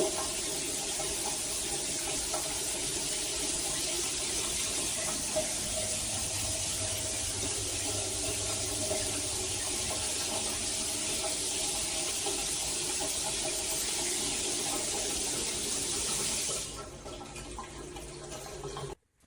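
Water running in a steady hiss, fitting a shower spray, which cuts off near the end and leaves a quieter trickle.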